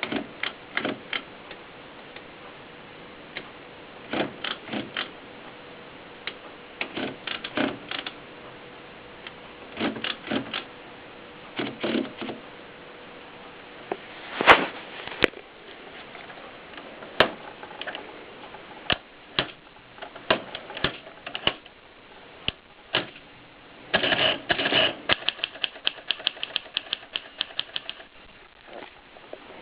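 Contessa typewriter being typed on: short bursts of key strikes separated by pauses, with a few single sharp clacks around the middle and a quicker, denser run of keystrokes near the end.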